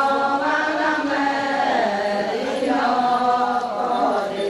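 Adi women singing a Ponung chant together, many voices in unison on long held notes that step from pitch to pitch.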